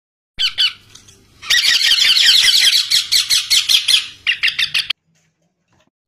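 Several Indian ringneck parakeet chicks squawking: short harsh calls, then a dense run of rapid begging squawks as they crowd a hand holding food, cutting off suddenly about five seconds in.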